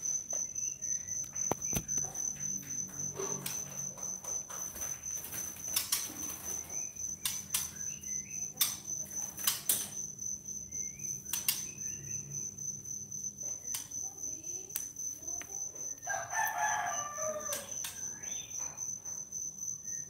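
A cricket chirring steadily and high-pitched. Over it come sharp knocks and rattles from a bamboo bird cage and wing flutters as a white-rumped shama is caught by hand, with short faint bird calls and a louder, longer bird call about sixteen seconds in.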